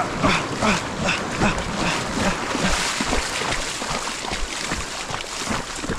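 Small waves washing in over the sand and shallow water sloshing and splashing, with a swelling hiss of surf about three seconds in.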